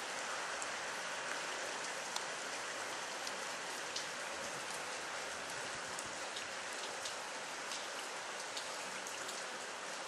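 Steady rain falling: a continuous hiss with scattered sharp drops tapping.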